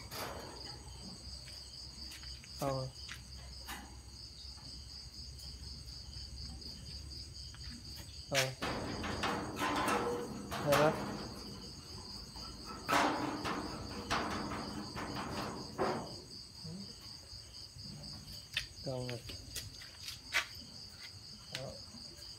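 Crickets chirping steadily in a high, pulsing drone, with a few brief louder noises now and then.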